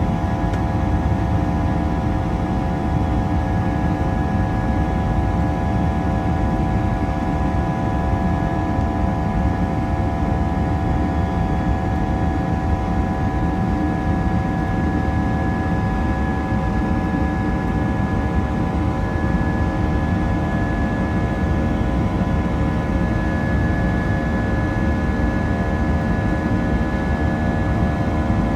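Jet engines of an Airbus A319 heard inside the cabin under high power: a steady rumble and rush of air with several steady whining tones above it.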